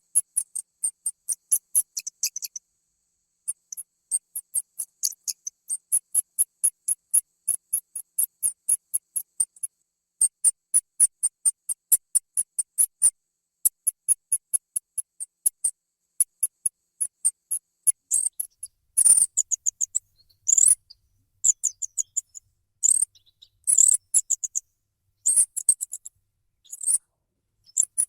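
Rat squeaking in rapid trains of high chirps, about four a second, in runs broken by short pauses. From about two-thirds of the way in, the squeaks come as louder, harsher bursts.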